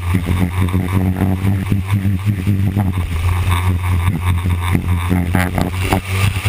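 Winged sprint car's engine running at racing speed on a dirt oval, heard from inside the cockpit as a loud, steady deep drone.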